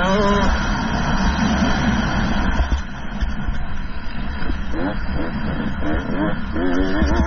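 Two-stroke motocross bike engine revving up and down, with a heavy low rumble of wind on the microphone.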